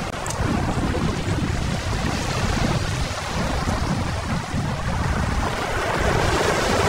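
Small sea waves washing and splashing over shoreline rocks, with wind buffeting the microphone as a steady low rumble.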